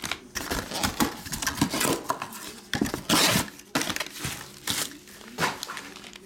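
Plastic shrink-wrap crinkling and foil-wrapped trading card packs and a cardboard box lid being handled: a run of rustles and light knocks, the longest and loudest rustle about three seconds in.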